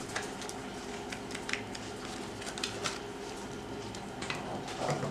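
Dried chile pods crackling as hands tear them open and strip out the seeds and veins: a scatter of light, dry crackles over a steady low hum.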